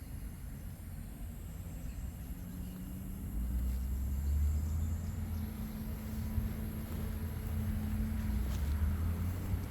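A motor vehicle's engine rumbling low and steady, growing louder about three and a half seconds in.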